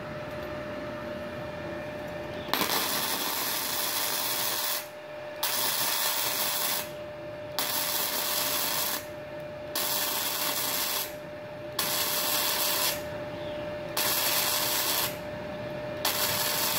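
Gasless flux-core MIG welding arc from a MultiPro MIG-MMA/TIG 160 inverter welder set to 52 amps, crackling and hissing in about seven short runs of a second or two each, with brief pauses between. The welder still manages this current on a 1300-watt household supply.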